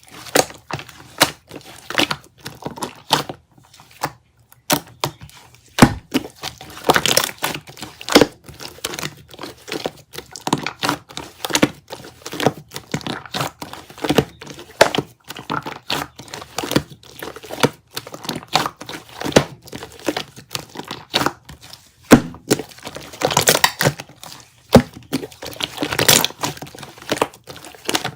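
Hands playing with slime: a continuous run of irregular sticky crackles, clicks and pops.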